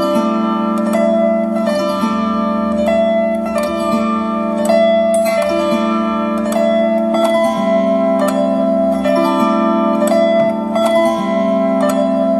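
Celtic harp playing a tune: a steady run of plucked notes over ringing lower notes that change every second or two.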